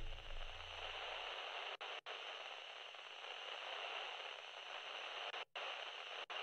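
Faint, steady static hiss that drops out to silence for a split second four times. A low note left over from the preceding music dies away in the first second and a half.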